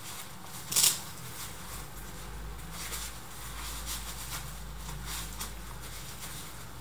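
Work gloves being pulled on and adjusted: rustling and rubbing of the glove material, with one short, loud rasp just under a second in and smaller scuffs after it.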